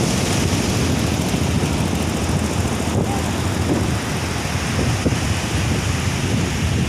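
Heavy ocean surf crashing and rushing, a steady loud roar with wind buffeting the microphone.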